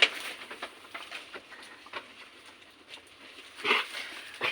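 Goat coughing: two short, harsh coughs near the end, with faint scattered rustling and clicks before them.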